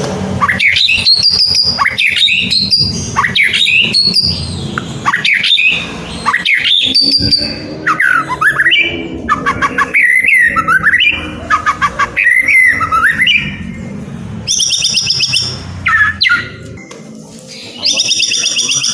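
White-rumped shama (murai batu) singing a loud, varied song of whistled phrases with rising and falling notes. In the second half the song breaks into two bursts of fast repeated high notes.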